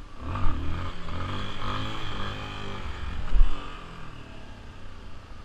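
Motorcycle engine revving, its pitch rising and falling for about four seconds before dropping away, with a low thump about three and a half seconds in.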